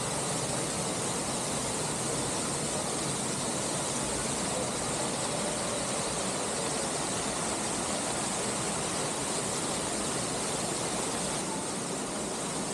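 Waterfall: steady rushing and splashing water, with a slight drop in level near the end.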